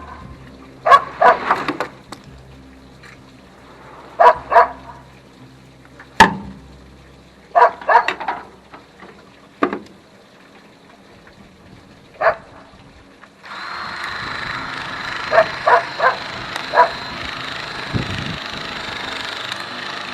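A dog barking in short bursts of two or three barks, repeating every few seconds. About two-thirds of the way in, a steady hissing noise starts and carries on under further barks.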